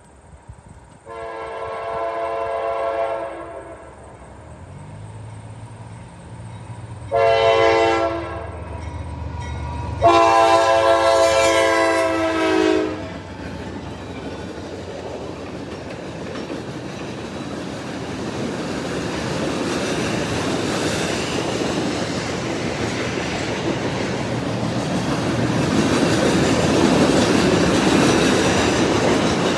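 CSX GE AC44CW diesel locomotive approaching and sounding its horn three times, long, short, long, with its engine rumble growing beneath. Then the continuous-welded-rail train's flatcars roll past with steady wheel clatter that grows louder toward the end.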